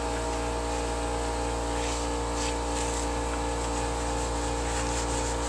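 A steady machine drone holding one pitch throughout, made of several fixed tones. Faint rustling of a paper towel wiping a plastic air filter cover comes and goes over it.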